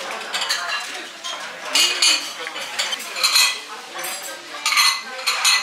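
Ceramic dishes and cutlery clinking and clattering in a restaurant dining room, in about four short bursts a second or so apart.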